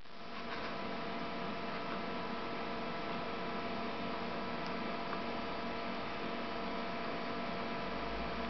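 Steady electrical hum with a hiss, holding several unchanging tones, and one faint tick partway through.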